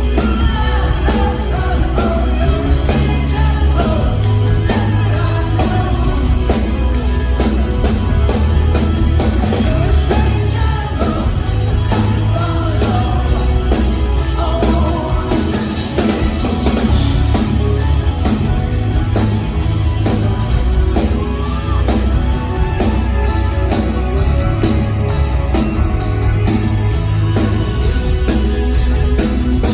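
Live rock band playing with a lead singer: steady drums and heavy bass under a sung vocal line.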